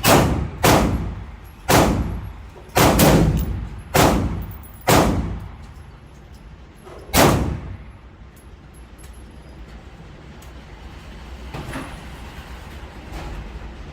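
AR-15 rifle fired in semi-automatic, about seven single shots at an uneven pace over the first seven seconds, each with a short echoing tail. Fainter shots follow later.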